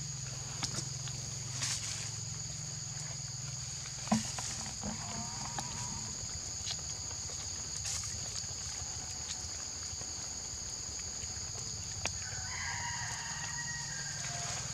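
Outdoor forest ambience: a steady, high-pitched insect drone, with short animal calls about four seconds in and again near the end. There is a single sharp click about four seconds in.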